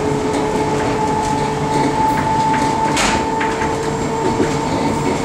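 London Underground D Stock train running at speed, heard from inside the carriage: a steady rumble with a steady whine over it, and a sharp click about three seconds in.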